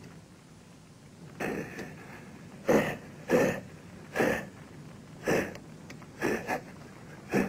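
A man's short, noisy breaths, about eight of them at uneven intervals, beginning about a second and a half in.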